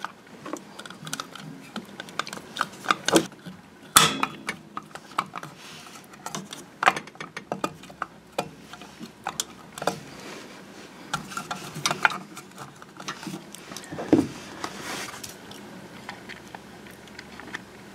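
Irregular clicks, taps and rubbing of hands fitting the cover and wire retaining clip over a refrigerator compressor's start relay, with wires scraping against it. The sharpest knocks come about 4, 7, 12 and 14 seconds in.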